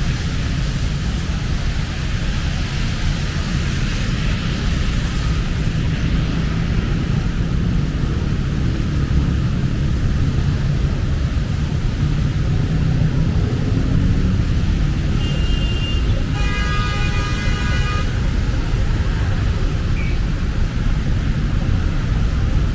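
Steady street traffic noise with a heavy low rumble. About two-thirds of the way through there is a short, high pitched tone with overtones lasting a couple of seconds.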